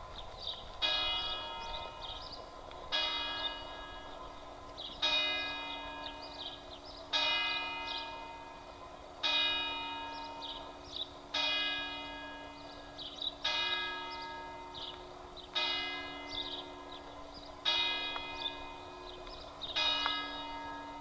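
Single church bell tolling from the bell tower, struck ten times at an even pace of about one stroke every two seconds, each stroke ringing on and fading before the next.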